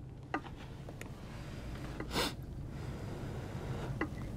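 A few light clicks of metal spoons against ceramic bowls as chili is scooped, with one short sharp breath about two seconds in, over a low steady hum.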